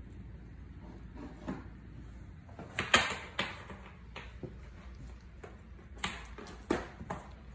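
Kittens playing on a hard floor: scuffling with a few sharp knocks and thumps as they pounce and land, the loudest cluster about three seconds in and two more near the end.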